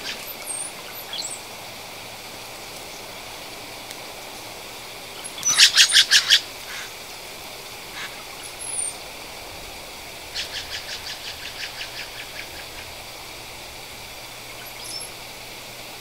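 Acorn woodpeckers calling in rapid rhythmic runs of repeated notes: a loud run of about eight notes in a second about five seconds in, and a softer, longer run starting about ten seconds in. A few faint, short, high thin notes come in between.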